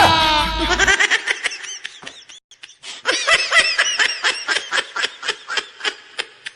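High-pitched giggling laughter in quick repeated pulses, about four a second, with a short break a little over two seconds in. A falling musical tone ends just at the start.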